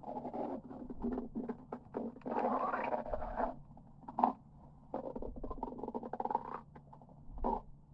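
Human stomach growling: irregular bursts of crackly gurgling separated by short pauses. The longest and loudest gurgle comes a little over two seconds in and lasts about a second.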